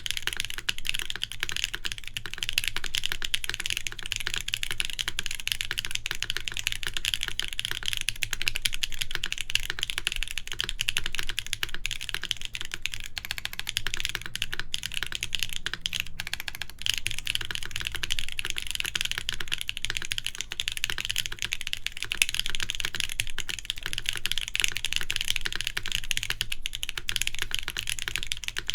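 Continuous fast typing on a Nayeon TKL mechanical keyboard with KTT Waverider switches, an aluminum plate and GMK Shoko R2 keycaps: a steady stream of key clacks with only brief pauses.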